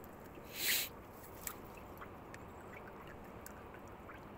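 Faint taps and scrapes of a knife slicing on a wooden chopping board, with a short hiss just under a second in.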